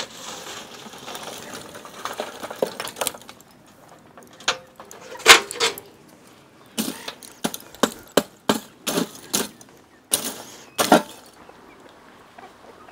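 Hot charcoal emptied from a tin chimney-starter bucket into a steel grill box, with a metal hook knocking and raking among the coals: a low rustle, then a run of irregular sharp clicks and knocks, the loudest about five seconds in.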